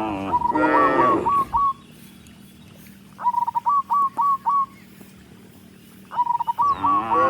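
Cows mooing: one long low moo fading at the start and another about a second later, then a new moo beginning near the end. Between the moos a bird calls in three quick runs of short whistled notes.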